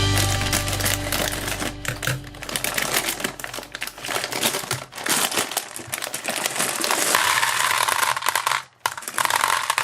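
Crinkling, crackling handling noise under the fading tail of background music, with a brief drop to near silence about nine seconds in.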